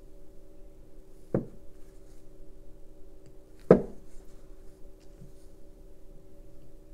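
Two knocks on a tabletop about two seconds apart, the second one louder, as the rhinestone-wrapped diffuser bottle and tools are put down. A steady low hum runs underneath.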